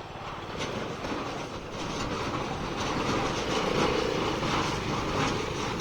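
Tractor engine running with PTO-driven hay machinery clattering steadily, growing louder toward the middle as the machine draws near.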